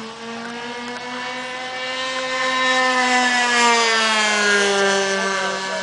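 Radio-controlled model airplanes' OS 91 glow engines running at high throttle. One plane passes close by: its engine grows louder, peaks about midway, then drops in pitch as it goes away, while another engine drones steadily underneath.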